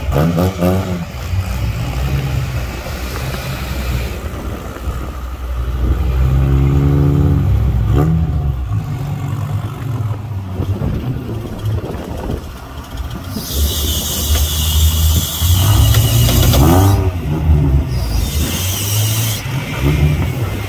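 Engines of two off-road SUVs running under load as one tows the other through deep mud, the revs rising and falling several times. Two loud bursts of hiss come near the end.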